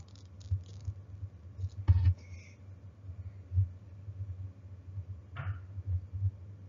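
Faint scattered small knocks, scratches and rustles of handling noise, with one sharper click about two seconds in.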